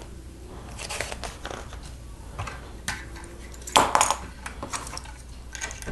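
Plastic Lego bricks clicking and clattering as they are handled and snapped together, a string of irregular clicks with a louder clatter just under four seconds in.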